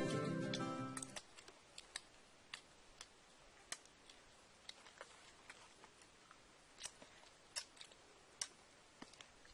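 Acoustic guitar music fading out in the first second, then faint, irregular small clicks and crackles of hands picking at food and handling leaves.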